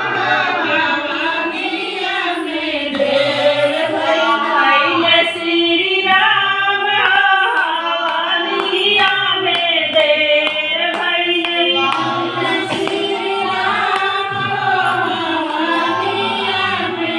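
Several voices, women's leading, singing a Hindu devotional song together.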